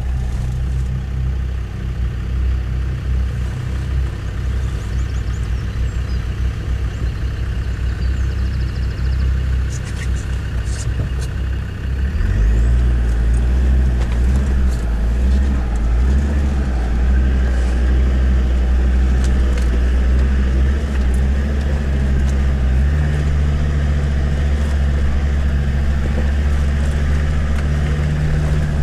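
Off-road 4x4's engine heard from inside the cab, running steadily as it crawls up a rocky track, getting louder and deeper about twelve seconds in. A few light clicks and rattles about ten seconds in.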